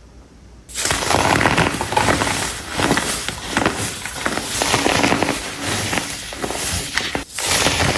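Compressed baking soda blocks being crushed: dense, loud crunching and crackling that begins about a second in, with a brief break shortly before the end.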